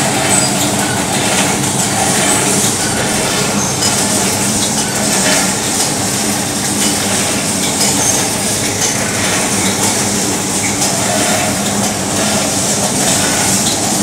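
High-tension wire-making machine running steadily: a continuous mechanical drone and clatter from the spinning drum and wire feed, with brief high squeaks of metal now and then.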